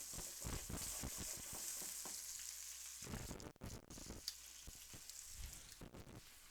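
Chicken frying in butter in a skillet: a steady sizzle with many small crackles and pops, a little louder for the first three seconds and then easing off.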